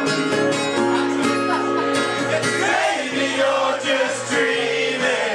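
Live amplified performance of a pop song: singing over guitar, played loud through a PA.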